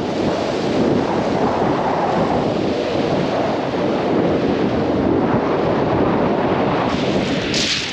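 Wind buffeting the microphone over surf washing on a steep shingle beach, a steady rushing noise with low rumble, and a brief sharper hiss near the end.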